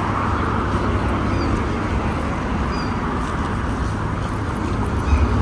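Outdoor street ambience: a steady rumble of road traffic mixed with wind noise on the microphone while walking.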